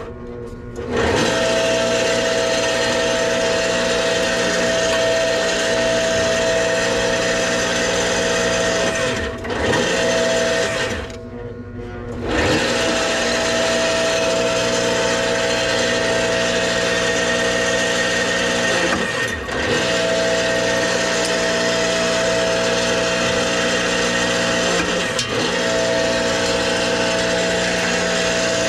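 Electric motor of a stationary power tool running steadily with a constant whine, dipping briefly in level and pitch several times, most deeply near the start and about twelve seconds in.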